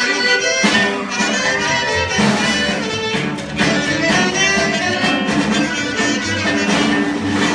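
A band playing Sonoran regional music, with a fiddle among the instruments.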